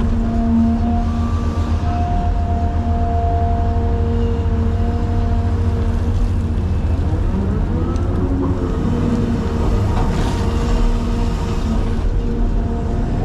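Cat 336 excavator's diesel engine running under load, a heavy steady rumble with the whine of the hydraulics over it; the whine swells and bends up and down in pitch around the middle as the hydraulics work harder.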